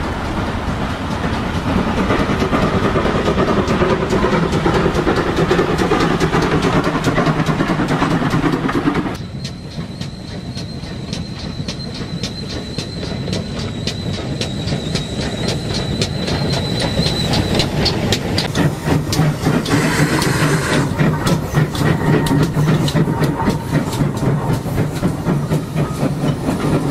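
Great Western steam tank locomotives working trains past, with rhythmic exhaust beats and wheels clattering over the rail joints. The sound changes abruptly about a third of the way in to a quieter passing train with a thin high steady whine for several seconds, then grows louder again.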